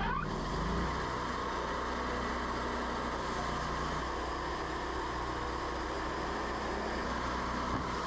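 Gas engine of a Wood-Mizer LT40 portable sawmill running steadily, with a steady high whine over it. The engine is starved of fuel by a plugging fuel filter and running lean, which the owner suspects.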